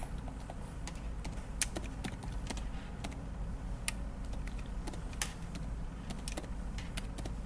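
Computer keyboard keys clicking one at a time, slowly and irregularly, as a web address is typed, over a steady low hum.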